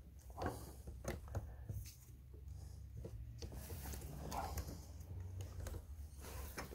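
Faint, scattered small clicks, knocks and rustles of gloved hands working an alternator into its mounting bracket in the engine bay.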